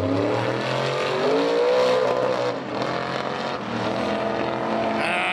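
A drag-racing launch: a V8 engine, which onlookers take for a Chevrolet LS, at full throttle. Its pitch climbs through the gears, drops back at shifts about a second in and again around two and a half seconds, then holds as the truck pulls away down the strip.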